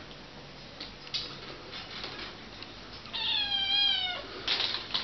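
Domestic cat giving one meow about three seconds in, lasting about a second and sliding slightly down in pitch. A few faint clicks, and a short scratchy noise near the end.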